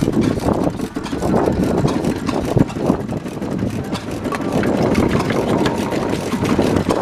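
Vintage stationary engines running, a busy mix of engine beats and mechanical clatter with many short knocks.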